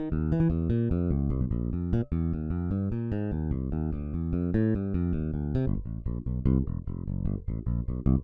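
Toontrack EZbass virtual electric bass playing a gospel MIDI bass line of quick, busy notes. About two-thirds of the way through, the line changes to a new pattern with lower, longer notes.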